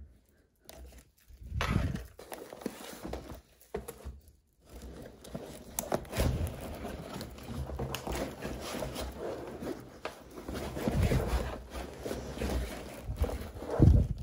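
Things being taken out of a Fjällräven Kånken fabric backpack and set down on a wooden desk: fabric rustling and handling, broken by knocks as items land. The loudest knock comes near the end.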